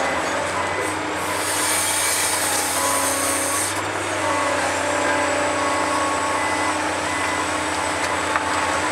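Caterpillar 365C L hydraulic excavator's diesel engine working steadily as the bucket digs into rocky earth. About a second in comes a hiss lasting roughly two seconds.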